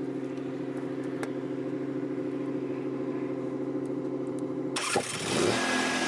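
Onan Marquis 5500 RV generator running at a steady speed. Its engine note cuts off suddenly almost five seconds in and gives way to background music.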